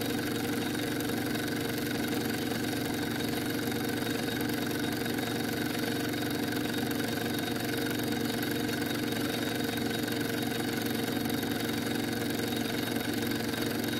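Scratch-built Tubal Cain 'Polly' model steam engine running at a steady speed under steam, a constant, even running sound.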